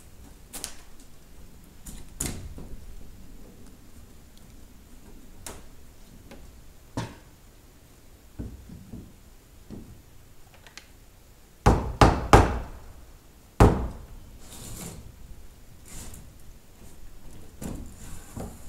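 Hammer striking wooden trim against the greenhouse's wood framing: a quick run of four loud blows about twelve seconds in and a single blow a second and a half later, with lighter scattered knocks of wood being handled and set in place before them.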